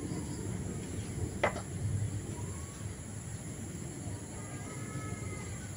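A single sharp knock about a second and a half in, as a golok fitted into its duralumin handle is knocked down against a wooden board to seat the tang, over steady low background noise.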